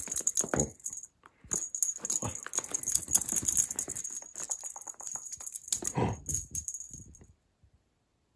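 A cat toy rattling as a cat bats and wrestles with it, with scuffing on a woven rug. It breaks off briefly about a second in, then goes on and stops about a second before the end.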